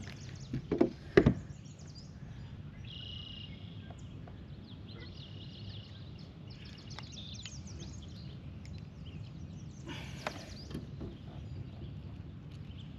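Small birds chirping in short, high, down-sweeping notes, in scattered clusters over a steady low background noise. A few sharp knocks sound in the first second or so.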